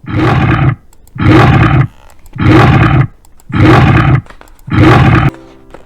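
Leopard sound effect: five harsh, rasping snarls, about one a second.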